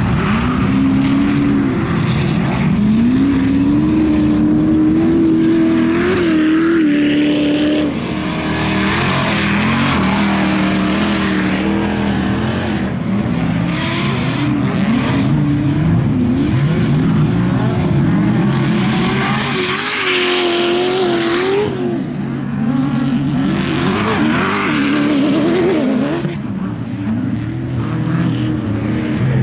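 Off-road race truck engine running hard on a dirt course. Its pitch climbs, holds and drops again and again as it accelerates and lifts, with loud hissing swells as it passes close.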